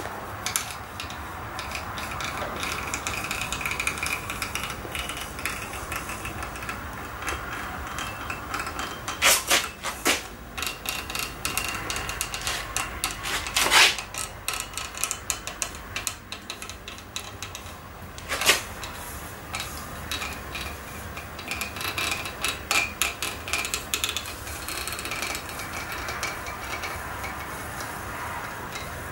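Hot wire foam cutter being drawn through a foam block along the edge of a template: a steady faint hiss with scraping and irregular small clicks, and a few sharper clicks, the loudest about halfway through.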